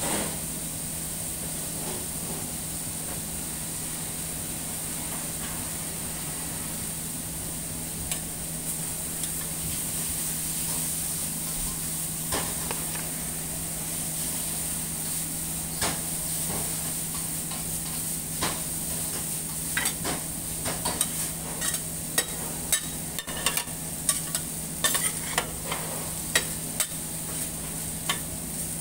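Rice and diced vegetables sizzling on a hot steel teppan griddle, over a steady low hum. In the second half a metal spatula starts clacking and scraping against the griddle, more and more often toward the end.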